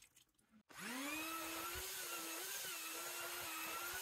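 Electric drill with a paddle mixer spinning up about a second in and running at a nearly steady speed that wavers slightly under load, stirring a bucket of clay adhesive mortar to break up lumps.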